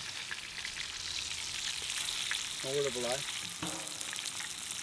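Breaded perch fillets frying in hot oil in a skillet: a steady sizzle with fine crackling.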